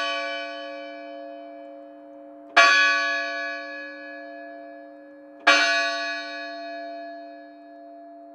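A single bell struck at a slow, even pace. A stroke is already ringing as the sound begins, then two more strokes come about three seconds apart. Each is the same note, sharp at the strike and left to ring and fade.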